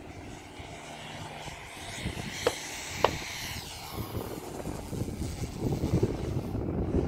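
Electric motor and 22x10 propeller of a large RC Extreme Flight Extra 300 in flight, its whir swelling about two seconds in and easing off again a couple of seconds later. Two sharp clicks come close together in the middle.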